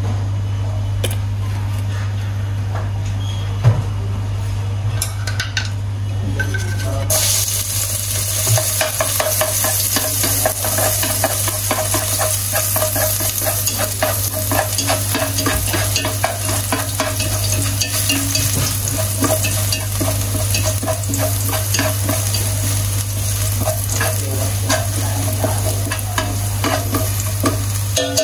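Minced garlic sizzling in hot oil in an aluminium stockpot while wooden chopsticks stir it. The sizzle comes on suddenly about seven seconds in, crackling with tiny pops, over a steady low hum; a single knock sounds about four seconds in.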